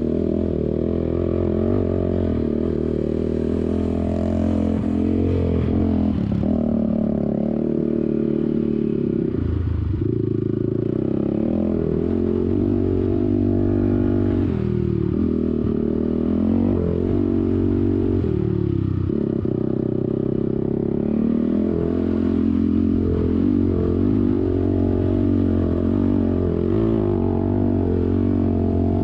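ATV engine running under way over sand. The engine note rises and falls with the throttle and dips briefly a few times as the rider backs off.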